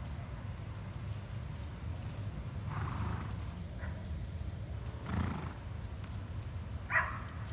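A horse whinnying faintly in three short calls, over a steady low rumble.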